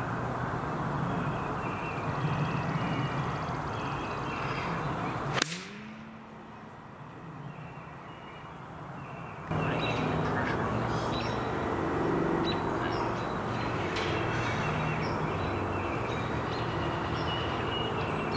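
Backyard ambience: birds calling over a low steady hum. There is a sharp click about five seconds in, after which the background drops quieter for a few seconds, then comes back abruptly.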